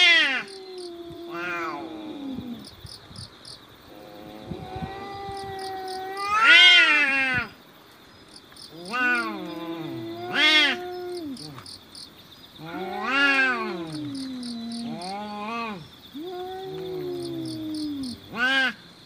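Two cats in a territorial standoff yowling at each other: a string of long, wavering howls, the loudest right at the start and again about six and a half seconds in, with shorter ones every couple of seconds.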